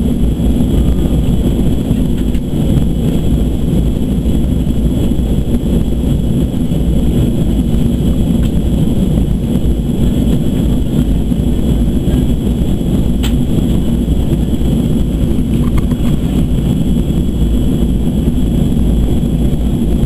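Steady in-flight cabin noise of a Boeing 737-200 Advanced: a loud, even rumble of its Pratt & Whitney JT8D engines and the airflow, with a steady high whine over it.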